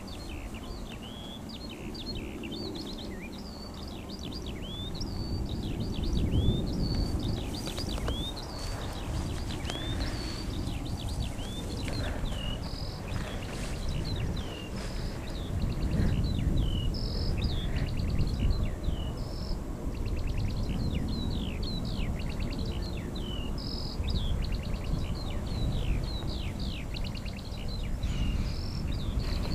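Many birds singing at once, a dense overlapping chorus of short chirps and whistled notes. A steady low rumbling noise sits underneath, swelling a little twice.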